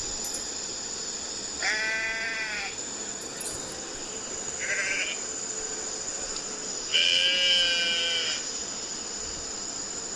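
Sheep bleating three times: a call of about a second, a short one, then one of about a second and a half, over a steady high-pitched background hiss.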